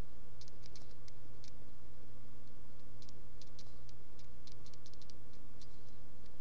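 Stylus tapping and scratching on a writing tablet as words are handwritten: scattered light clicks in small clusters over a steady low hum.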